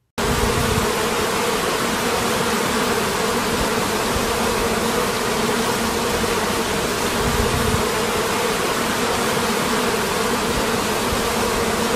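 Bees buzzing in a steady drone with a low hum, cutting in suddenly just after the start.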